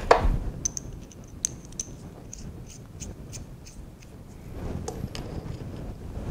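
Light metallic ticks, about three or four a second, as a steel T-nut is spun by hand onto a threaded milling-clamp stud. Near the end come softer handling sounds as the stud is set into the mill table's T-slot.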